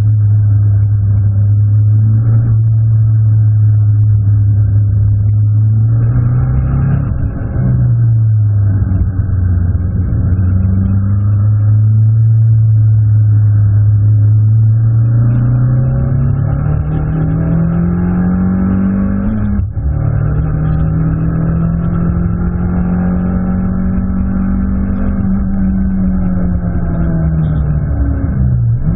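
Abarth 500 Assetto Corsa race car's turbocharged four-cylinder engine, heard from inside the cabin while lapping a track. The note holds steady, climbs briefly and drops back, then rises steadily for several seconds to a sudden break at an upshift about two-thirds of the way through. It then holds a higher, steady note and falls away near the end.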